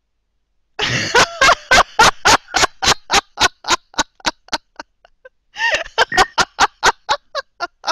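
A woman laughing loudly in rapid, evenly spaced bursts of about four a second that trail off, then a second fit of laughter after a short pause.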